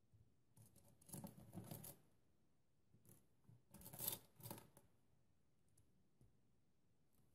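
Small plastic building-brick parts clicking and rattling as hands handle a minifigure and rummage through a pile of loose pieces, in two short clusters about a second in and about four seconds in.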